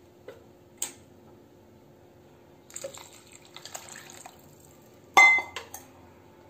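Rice being stirred into water in a pressure cooker with a spatula, with soft sloshing and scraping, then one sharp clank with a brief metallic ring about five seconds in.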